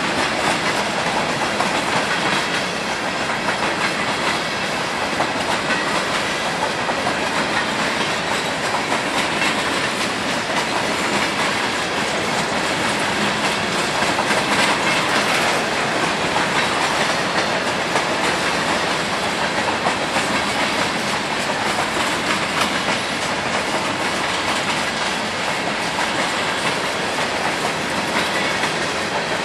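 Freight train of covered and open hopper cars rolling past at speed: a steady wheels-on-rails noise that holds without letup.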